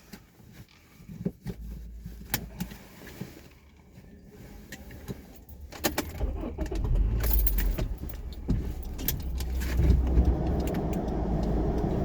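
Keys jangling and sharp handling clicks, then a car engine running as a steady low rumble from about six seconds in.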